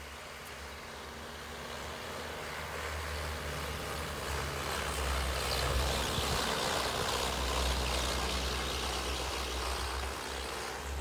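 Chevy Colorado's 2.8-litre Duramax four-cylinder turbodiesel running under load, with the rushing churn of its rubber tracks through deep snow. It swells to its loudest about halfway through, then eases off a little.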